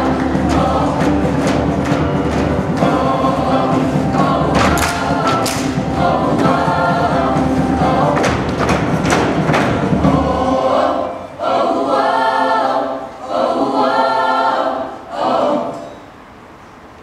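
Show choir singing over accompaniment with a steady beat. About ten seconds in the accompaniment drops out and the choir closes the song with three short held chords, then falls quiet near the end.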